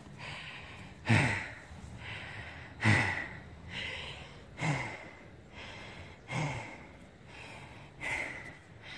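A trail runner's heavy breathing from exertion on a steep downhill: five loud, sighing exhales evenly spaced about every second and three quarters, each falling in pitch.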